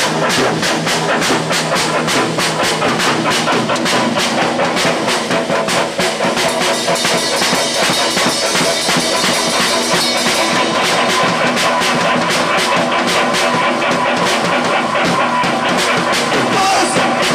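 Rock band rehearsing live, led by a drum kit played with fast, even hits over sustained, loud instruments.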